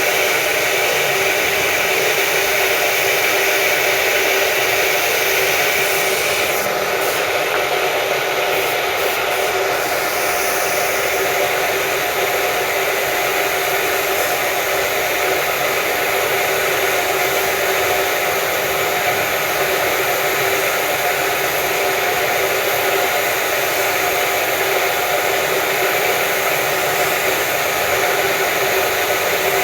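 Steady whir and hiss of compressed-air spray-painting equipment, an air rush with a motor hum under it, running without a break. A high tone in it stops about six seconds in.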